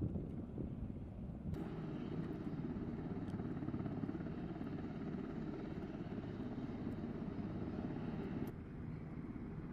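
Steady rumble of aircraft engines on an airfield flight line. A brighter hiss joins abruptly about a second and a half in and drops away again near the end.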